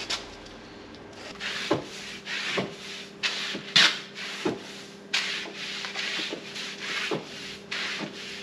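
A string mop swished back and forth across a hard painted floor: a run of repeated rubbing swishes, about two a second, starting about a second in.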